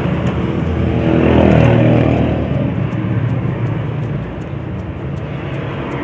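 A passing motor vehicle: its engine drone rises and swells about a second and a half in, then falls away, over a steady low background engine hum.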